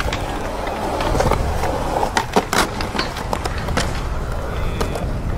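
Skateboard wheels rolling on concrete, a steady rumble, broken by several sharp clacks of the board hitting the ground.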